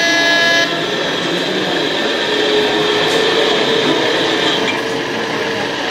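Model train running on a layout with a steady whirring hum. A horn-like toot, several steady tones together, cuts off about half a second in, and a faint held tone sits in the hum through the middle.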